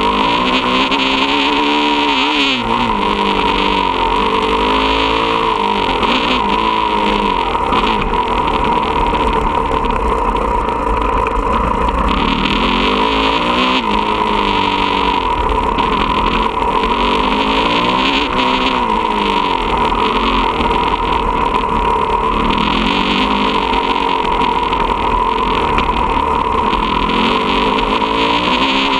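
Motocross dirt bike engine running under load, its pitch rising and falling every few seconds as the throttle is opened and closed, over a steady rushing noise.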